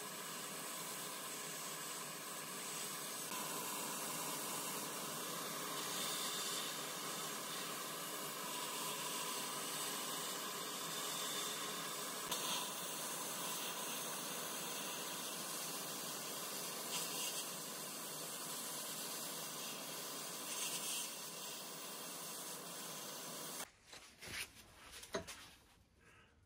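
Sandblaster gun firing abrasive at the frame of a manual potato chipper inside a blast cabinet: a steady, even hiss of air and grit. It stops abruptly near the end, and a few light knocks follow.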